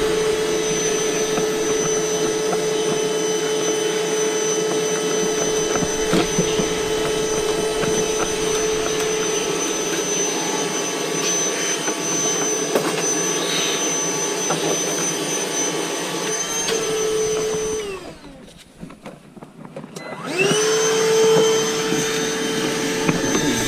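Vacuum cleaner running steadily while clearing bird debris out of a blocked furnace flue pipe. Near the end it is switched off, its whine winding down, and about two seconds later it is switched back on, the pitch rising back up.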